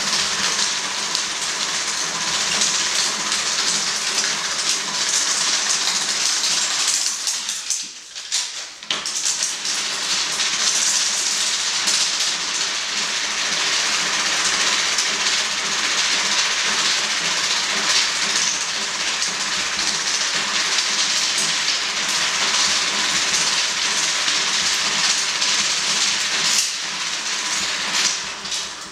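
Dense, steady hiss and crackle with a few held hum tones from a 35 mm film's optical soundtrack that has been scratched and painted directly by hand, played through the projector. It drops out briefly about seven seconds in and gets quieter near the end as blank leader runs through.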